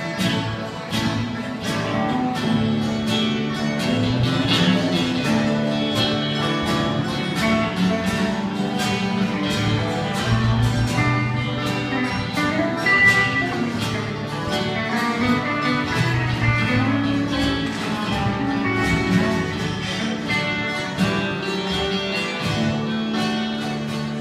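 Live instrumental country-style jam: plucked strings picking quick runs of notes over a steady accompaniment.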